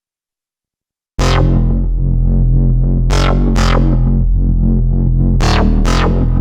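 ASM Hydrasynth digital wavetable synthesizer playing its factory bass preset "Doppler Bass MP": a loud, deep bass line with sharp, bright attacks on the notes. It starts suddenly about a second in, after silence.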